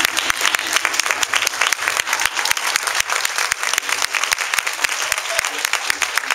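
Congregation applauding: dense, steady clapping from many hands.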